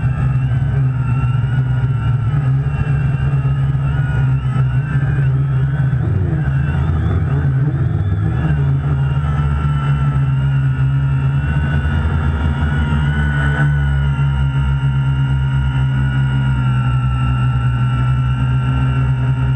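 Quadcopter's electric motors and propellers whining, heard from the GoPro mounted on the craft, over a strong low hum. The pitch wavers up and down during the first half as the craft manoeuvres, then holds steadier over the second half while it hovers.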